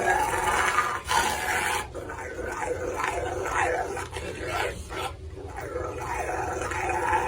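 A dog vocalizing, its voice bending up and down in pitch, with a few brief breaks.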